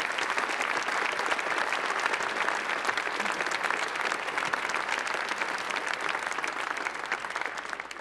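A large seated audience applauding, a dense steady clatter of many hands clapping that thins out and dies away near the end.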